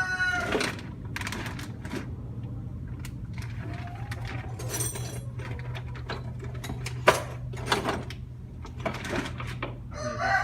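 A rooster's crow trails off at the start and another begins at the very end. In between come scattered metallic clicks and clanks of hand-tool work on an engine hose clamp, the sharpest about seven seconds in, over a steady low hum.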